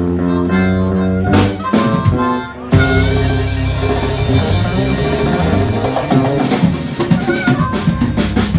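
Live blues band playing: a blues harmonica wails over electric guitar, drum kit and djembe. The band breaks off briefly a little under three seconds in, then the whole band comes back in on a steady beat.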